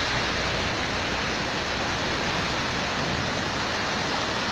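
Wolf Creek running in flood, a steady rush of fast, high water.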